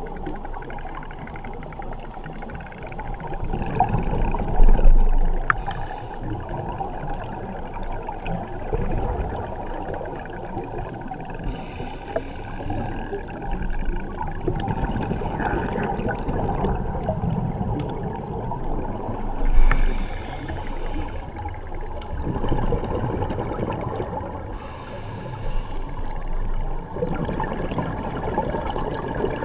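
Scuba regulator breathing heard underwater through a GoPro's waterproof housing: a brief hiss about every six seconds, with a low bubbling rumble of exhaled air between.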